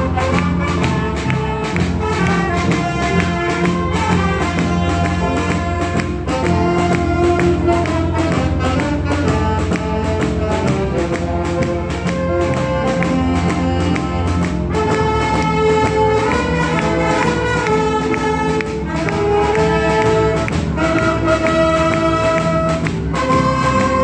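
Wind band of saxophones and brass playing a tune over a held low bass line, with a steady beat.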